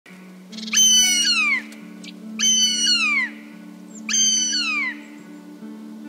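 A bird of prey calls three times. Each call is a high, loud whistle held level and then falling in pitch at the end. Under the calls runs a soft, sustained music drone.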